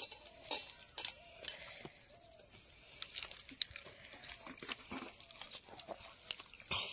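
Close eating sounds: fingers working wet rice soaked in water on a steel plate, with chewing and lip smacks, making irregular sharp clicks and wet smacks.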